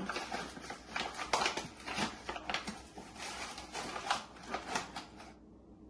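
Measuring cup scooping flour and tipping it into a bowl: irregular dry rustling and scraping that stops about five seconds in.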